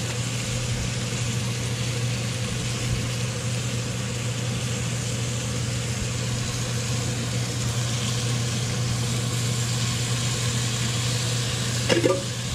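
A steady, unchanging low motor hum under an even hiss.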